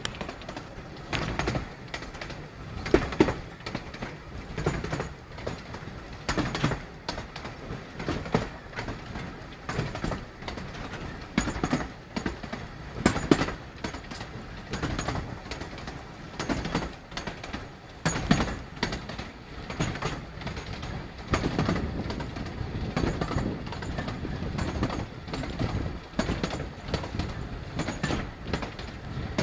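Narrow-gauge steam train on the move, heard from a carriage window: a continuous running rumble with the wheels knocking and clattering irregularly over the rail joints.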